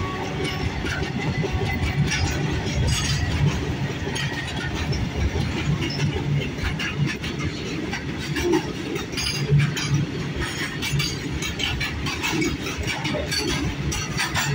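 Covered freight wagons of an Indian Railways goods train rolling past close by: a steady rumble of steel wheels on rail, with a rapid, irregular clatter of wheels over rail joints.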